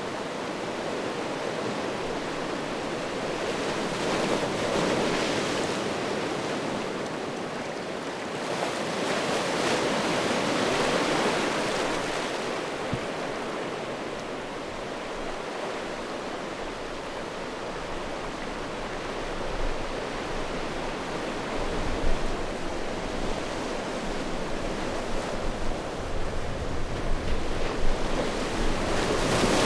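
Small sea waves washing in over a beach of rounded stones, the surf swelling and ebbing in slow surges. In the second half, gusts of wind buffet the microphone with low, uneven rumbles.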